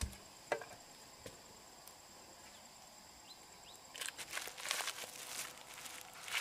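Insects buzzing steadily at a high pitch, with a few sharp clicks in the first couple of seconds; from about four seconds in, irregular rustling, crunching footsteps take over.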